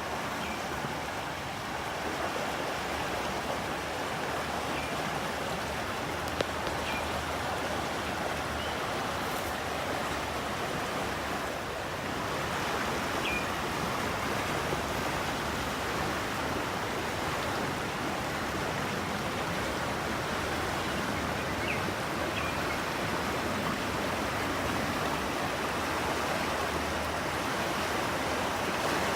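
Moving water rushing steadily, a continuous even wash of noise.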